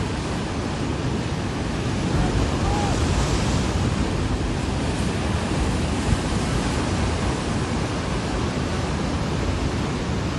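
Steady rush of ocean surf at a river-mouth bar, mixed with wind buffeting the microphone.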